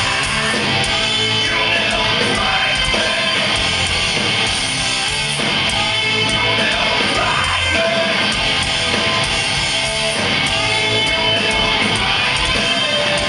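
Live rock band playing an instrumental passage: distorted electric guitars over bass and drums, loud and steady throughout, heard from the audience in the hall.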